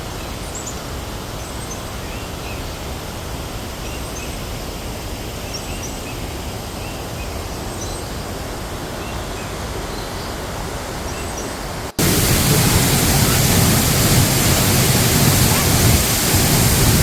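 Steady rushing of a waterfall, with faint short high chirps over it. About twelve seconds in it cuts abruptly to a much louder, fuller rush of water.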